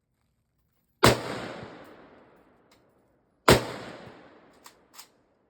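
Two gunshots at an outdoor range, about two and a half seconds apart, each followed by a long fading echo. Two faint clicks come shortly after the second shot.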